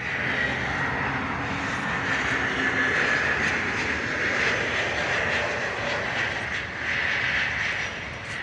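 Twin-engine jet airliner passing low on final approach to land: a steady jet engine rush with a high whine running through it. The sound begins abruptly and eases off near the end.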